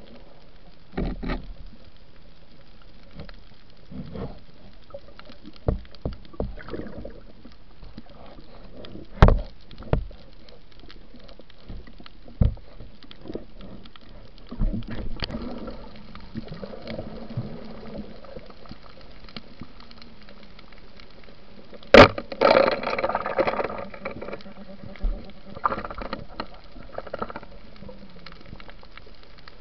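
Underwater gear noise on a night spearfishing dive: scattered knocks and clicks against the camera housing over a low hiss of moving water. About two-thirds of the way through comes one sharp, loud crack, followed by a couple of seconds of rushing, bubbling noise.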